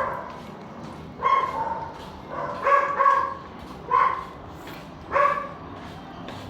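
A dog barking repeatedly, short sharp barks about once a second.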